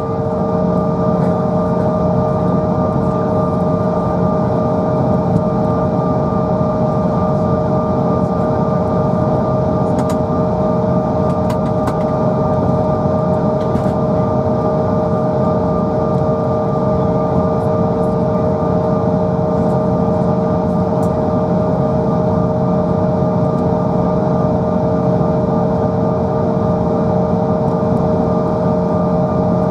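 Cabin sound of a Bombardier CRJ900's rear-mounted General Electric CF34 turbofans at low taxi power: a steady whine made of several fixed tones over an even rushing hum.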